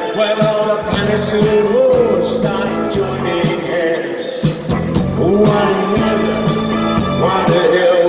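Live rock band playing loudly through a concert PA: drums keeping a steady beat under bass and electric guitars, with a lead melody line rising and falling over them.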